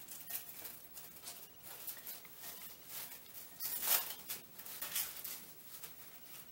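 Plastic wrap crinkling and crackling as it is stretched and pressed tight over the rim of a glass bowl, in irregular rustles, loudest about four seconds in.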